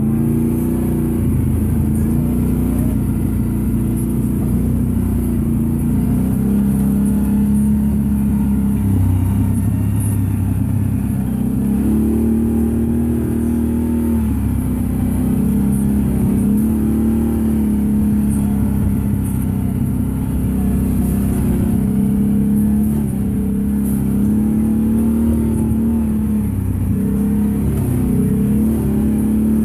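Can-Am Outlander ATV engine running under way, its pitch rising and falling with the throttle.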